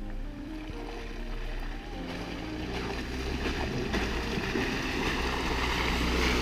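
Jeep Wrangler driving through muddy, water-filled ruts toward the microphone, its engine and tyre noise growing steadily louder as it comes closer.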